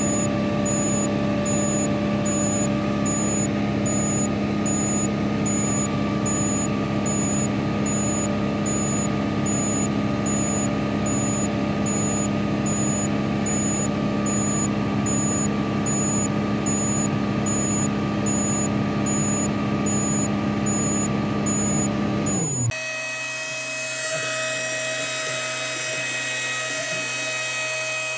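Komatsu excavator's six-cylinder turbo-diesel running steadily at high rpm, about 2,070 rpm, heard from inside the cab, with a faint high tick repeating a little over once a second. A little before the end it cuts off abruptly and gives way to a quieter, high-pitched whining tool sound.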